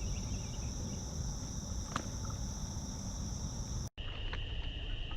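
Steady high-pitched chorus of crickets over a low rumble. The sound drops out for an instant about four seconds in, and a few sharp clicks follow near the end.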